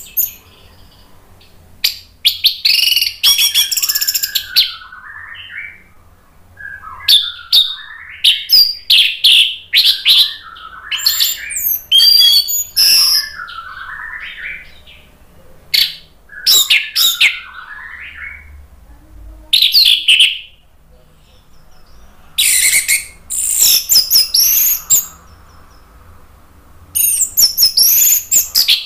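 Orange-headed thrush singing loudly and freely: bursts of quick, varied whistled phrases with fast gliding notes, broken by pauses of a second or two.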